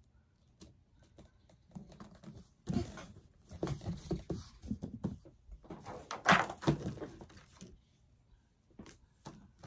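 Irregular rustling, scuffing and light knocking from hands handling craft pieces on a plastic-covered tabletop, loudest about six seconds in.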